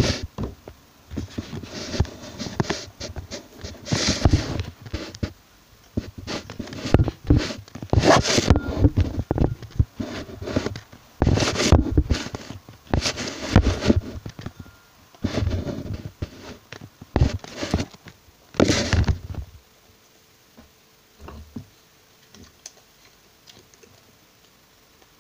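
Irregular bursts of scraping and rustling from objects being handled close to the microphone, going on for about nineteen seconds, then a few faint knocks.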